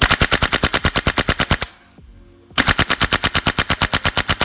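WE MSK (ACR-style) gas blowback airsoft rifle firing two full-auto bursts of about ten shots a second, the first about a second and a half long, the second starting after a short pause and still going at the end. The bolt, driven by a stiffer Poseidon super recoil spring, cycles fast, and a Noveske flash hider makes the rattle sound like a chainsaw.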